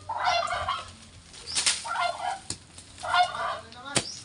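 Domestic turkey gobbling three times, each gobble a short rattling burst about a second and a half apart. A sharp click comes near the end.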